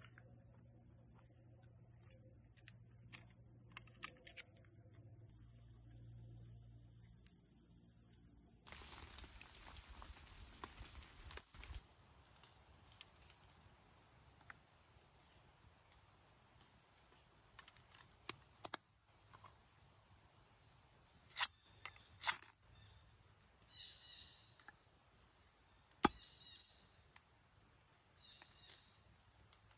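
Insects singing in a steady high-pitched buzz that drops in pitch about nine seconds in. Several sharp clicks and short scrapes from hands working gear stand out, the loudest over a few seconds about two-thirds of the way through.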